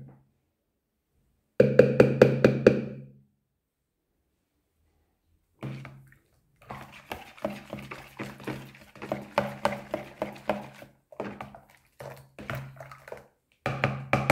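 A metal spoon clinking against a juice container: a quick run of about six taps, then a longer spell of irregular clinks and knocks, as of stirring.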